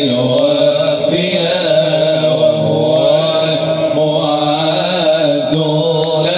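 Unaccompanied Islamic nasheed: a male voice sings a long, winding melodic line over a steady held vocal drone.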